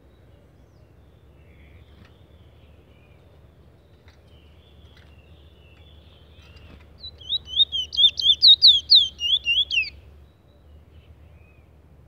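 Caged Trinidad bullfinch (chestnut-bellied seed finch) singing. A few faint chirps come first, then, about seven seconds in, a loud fast phrase of about a dozen quick falling whistled notes, roughly four a second, that stops abruptly after about three seconds.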